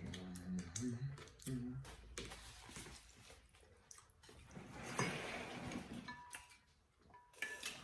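People eating pork neck bones: wet mouth clicks and smacking, with a few short hummed 'mm' sounds in the first two seconds and a brief rustle about five seconds in.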